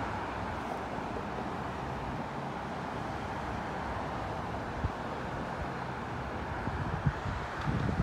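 Distant jet airliner engines on the runway after landing: a steady rushing roar. A few short wind thumps hit the microphone in the last seconds.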